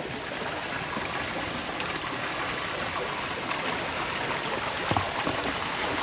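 Spring water flowing steadily through a stony pool and trickling over rocks, an even rush with no breaks.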